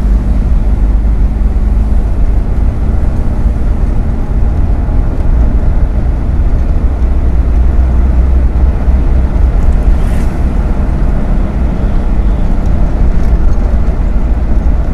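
Steady engine and road rumble inside the cabin of a moving manual car, deep and even throughout.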